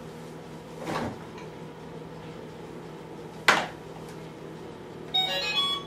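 Plastic toy cars and a plastic racetrack playset clattering, with a soft knock about a second in and a sharp click midway. Near the end the toy plays a short electronic jingle of stepped beeping tones.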